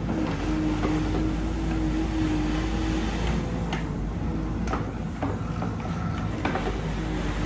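Excavator's diesel engine running steadily with a hydraulic whine that comes and goes as the tilting bucket spreads and levels gravel. A few short sharp knocks sound in the second half.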